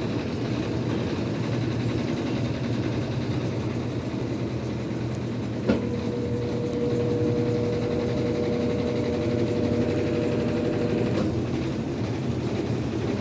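Washing machine running with a steady mechanical hum. About six seconds in, a click starts a steady whine that holds for about five seconds and then stops. The owner calls the noise from beneath the motor strange and cannot say what it is.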